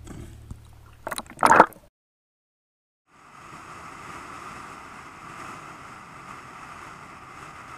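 Water splashing against an action camera at the sea surface, in loud bursts about a second in. After a second of silence, steady wind and road noise on a camera mounted outside a moving car.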